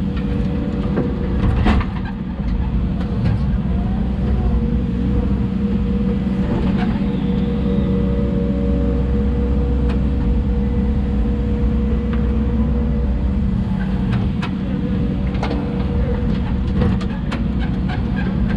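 Hidromek 140 crawler excavator's diesel engine running steadily while working, with a sustained hum and scattered sharp clicks and knocks, several of them in the second half.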